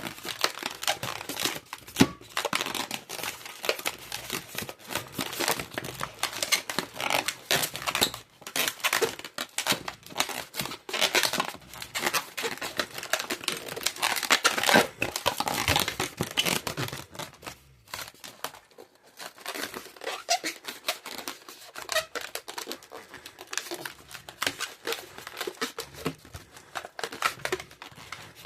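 Latex modelling balloons being twisted and handled: continuous irregular rubbing, squeaking and crinkling of the rubber, with a sharp snap about two seconds in.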